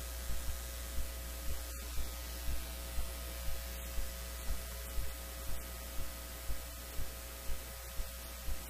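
Steady electrical hum and hiss on the sound track with a short low pulse about twice a second, like interference in the recording chain; no voice is heard.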